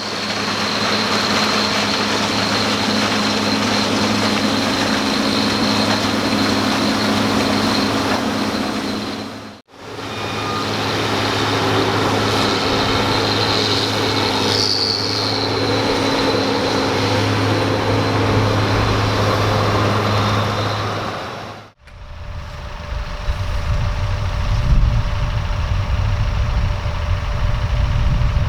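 Heavy farm machinery at work, most likely the New Holland CR 9070 combine harvester threshing corn: a steady engine drone under a high, constant whine. It dips out twice as the shot changes, and in the last part turns into a deeper, rougher rumble from a different machine or position.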